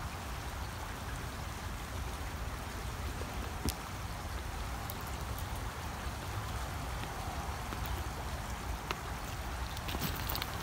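Steady rush of a creek's running water, with a couple of faint clicks.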